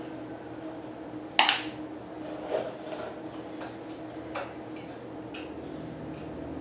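Small metal bike parts and tools clinking as they are handled and set down, with one sharp clank about a second and a half in and several lighter clicks after, over a steady low hum.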